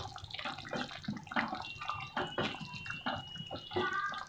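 Wooden spatula stirring a potato curry in a nonstick pan: irregular scrapes and light knocks against the pan, with the wet sloshing of the gravy.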